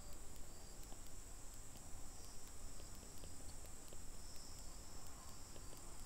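Crickets trilling steadily in a high-pitched band over a low hum, with faint ticks at an even pace.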